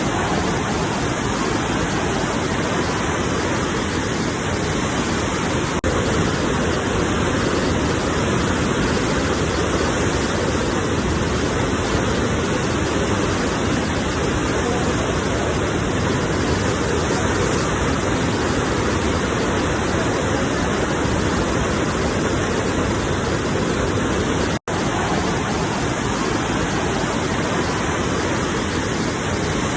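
Ocean waves on a shore, heard as a steady, even rushing of surf. The whole sound drops out for an instant about 25 seconds in.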